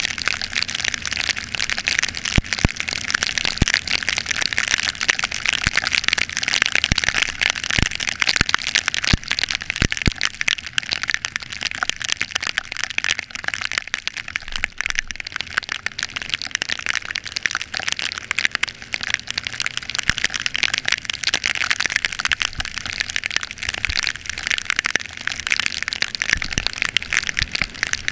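Heavy rain falling: a dense, steady crackle of countless drops striking close by, with scattered sharper hits.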